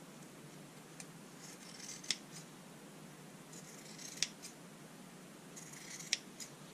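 Freshly sharpened Wilkinson Sword scissors cutting through cloth in three strokes about two seconds apart, each a brief slicing hiss ending in a sharp snip as the blades close, followed by a smaller click. The clean cuts show the scissors cutting well again after sharpening.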